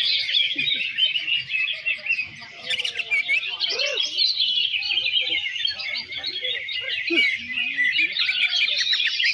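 A dense chorus of many caged greater green leafbirds (cucak ijo) singing at once at a songbird contest, with overlapping rapid chirps and trills. The chorus dips briefly about two seconds in.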